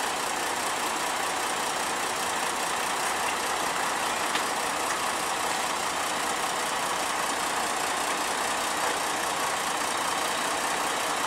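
Diesel engines of a farm tractor and a lorry tractor unit running steadily while the tractor tows the stuck step-frame low loader on a strap.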